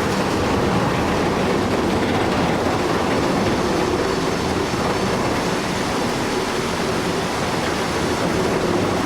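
Heavy machinery running: a steady, loud rumble with a dense rattle that changes abruptly at the very end.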